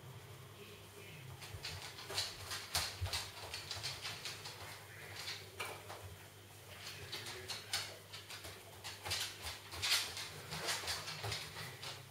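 A dog moving about in a small room: irregular clusters of short clicks and taps, loudest about ten seconds in.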